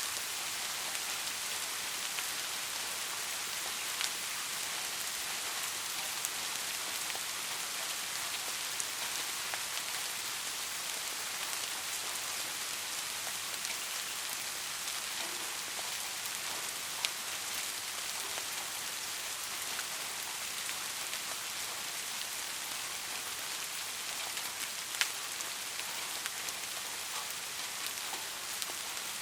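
Steady rain falling, an even hiss with scattered louder individual drop taps, a few standing out at about 4, 17 and 25 seconds in.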